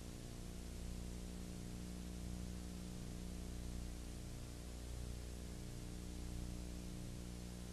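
Steady electrical hum with a buzzy stack of overtones, under an even hiss, unchanging throughout: the background noise of a transfer of a silent home-movie film.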